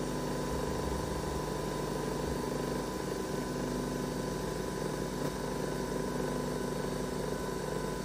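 Nespresso Vertuo Plus mid-brew, its motor spinning the capsule in a steady hum as the coffee is extracted.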